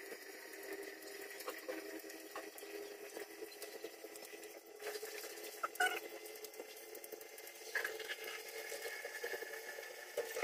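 Two people eating with their hands: faint chewing and lip smacks, and the small wet taps and rustle of fingers picking rice and fish off a banana leaf, with a few sharper clicks.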